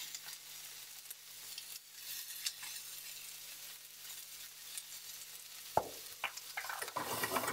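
Sliced zucchini and onion sautéing in olive oil in a frying pan on a gas burner: a steady high sizzle with small pops. A single knock comes a little before six seconds in, and the sizzle grows louder and more crackly near the end.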